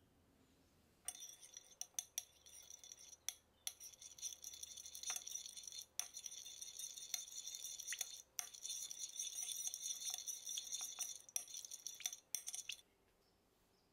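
A utensil beating liquid ingredients in a mixing bowl: rapid clinking and scraping against the bowl, with a few short pauses and sharp taps, stopping near the end.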